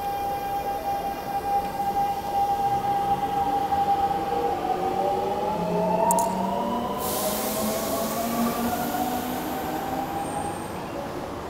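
Subway train pulling out of an underground station. The electric traction motors whine at one pitch, then rise in several climbing tones as the train gathers speed. A sharp click comes about six seconds in, and a hiss follows a second later.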